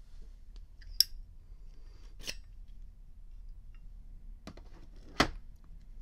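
Chrome Zippo lighter being handled, metal on metal: a sharp ringing clink about a second in as the lid flips open, then softer clicks as the insert comes out of the case. About five seconds in there is a louder knock as the case is set down on the table.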